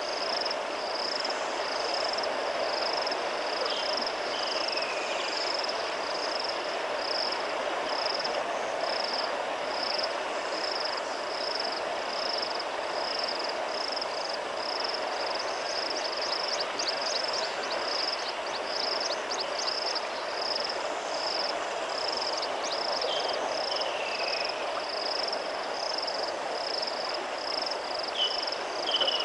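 River water flowing steadily, with a high chirp repeating about three times every two seconds from an insect or frog calling nearby. A bird gives a few short falling whistles now and then.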